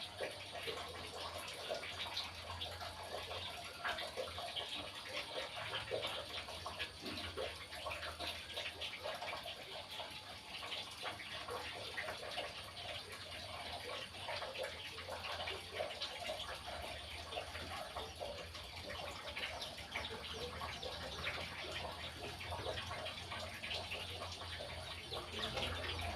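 Caged pet birds chirping and chattering in a dense, continuous stream of short calls, over a low steady hum.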